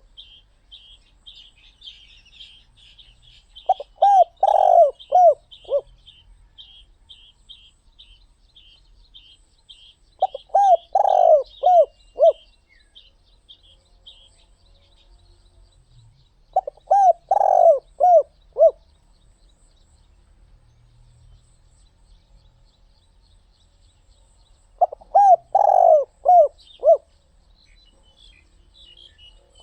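Spotted dove cooing: four multi-note coo phrases of about two seconds each, repeated roughly every seven seconds. A faint, fast, high chirping from another bird runs under the first third.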